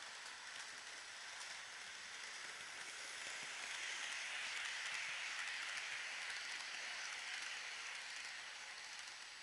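Roco model train running past on the track: the whirr of the locomotive's motor and the rumble of the wagons' wheels over the rails, growing louder as it draws level, loudest about halfway through, then fading as the wagons go by.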